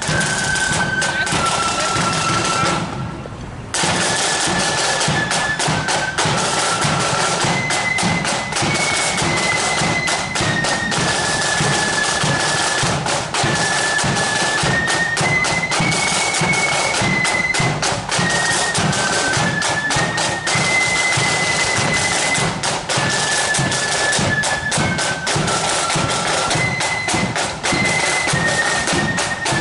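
Marching flute band playing a tune: massed flutes carry a high melody over a steady beat of snare and bass drums. The music briefly drops away about three seconds in.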